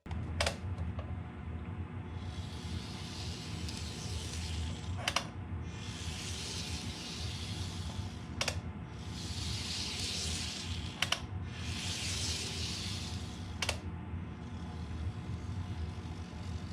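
Hands handling the plastic packaging of an N-gauge model train: sharp clicks every few seconds with rustling between them, over a steady low hum.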